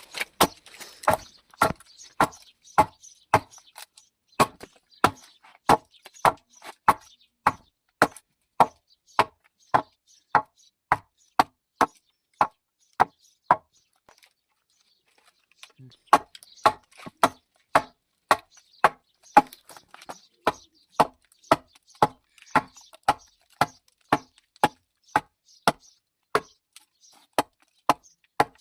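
A steady series of sharp knocks on wood, about two a second, with a pause of a second or two near the middle.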